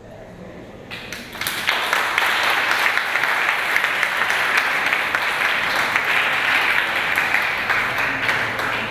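A roomful of students applauding, the clapping starting about a second and a half in, holding steady and dying away near the end.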